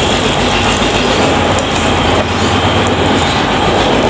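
Broken vermicelli frying in hot ghee in a pan, with a steady sizzle as it roasts.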